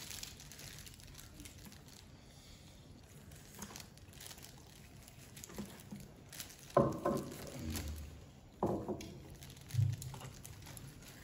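Cleaver carving a braised pork leg on a platter of lettuce, with crinkling and rustling from a plastic glove and the leaves. A few short, louder knocks come in the second half.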